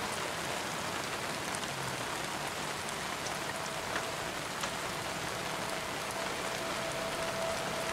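Heavy rain falling steadily: an even hiss of rain with scattered sharp drop ticks.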